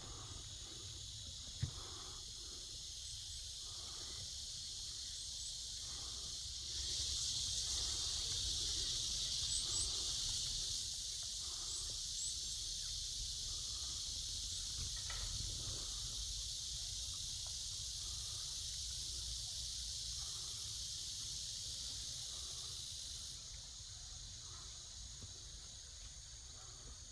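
Steady, high-pitched chorus of insects trilling, with several continuous tones layered together. It swells louder for a few seconds near the start and eases off near the end.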